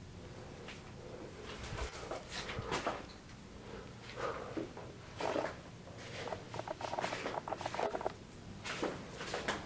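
Footsteps with irregular knocks and scrapes of debris underfoot, growing busier about six seconds in.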